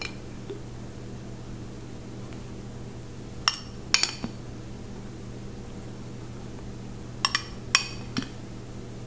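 Large metal serving spoon clinking against a glass pasta-sauce jar while scooping sauce out: a few light clinks, then a second group of about four clinks near the end.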